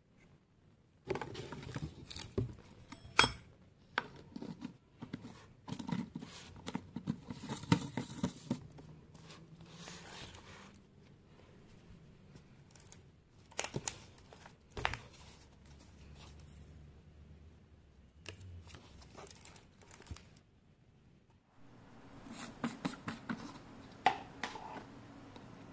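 Plastic handling sounds from a protein powder tub, its plastic scoop and screw lid: bursts of scraping and rustling with sharp plastic clicks, a quiet stretch in the middle, then more rustling and clicks near the end.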